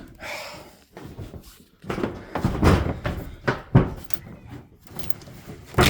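Irregular knocks, thumps and scrapes of a small plastic kayak being wrestled free from among piled junk, with a sharp knock about three and a half seconds in and another near the end.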